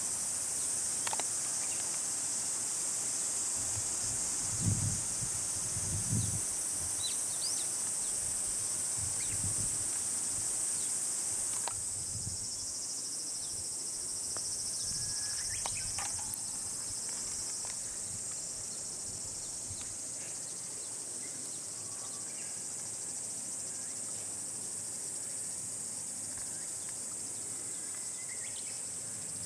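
Steady high-pitched chorus of insects with a few short bird chirps. A couple of low thumps come about five and six seconds in.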